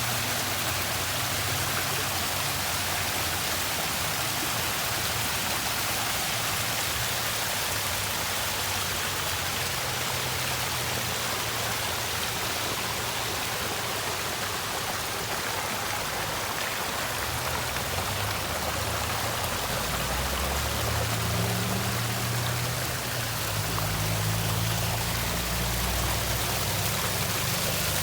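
Running water, a steady rushing splash with no pauses. A low rumble joins in about two-thirds of the way through.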